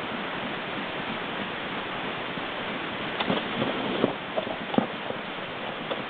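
A steady hiss, with several short knocks and crackles between about three and five seconds in as a brown bear moves about at a tarp on the forest floor.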